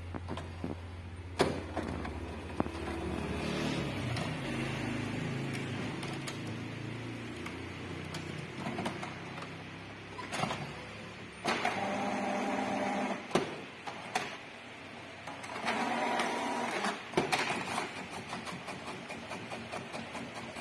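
HP Ink Tank 319 inkjet printer printing a page: its feed and carriage mechanism runs in whirring bursts with clicks between them, ending in a run of evenly spaced ticks as the page is fed out.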